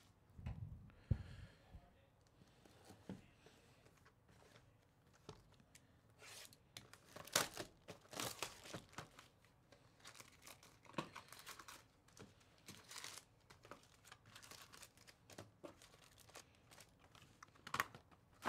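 A trading-card hobby box being opened and its foil-wrapped card packs pulled out and stacked: irregular crinkling and tearing of wrappers, with scattered light taps of cardboard and packs on the table.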